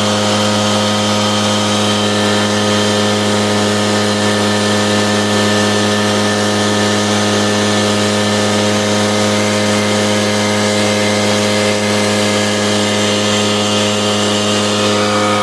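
Echo PB770H backpack leaf blower's two-stroke engine running at a steady, even speed, without stumbling.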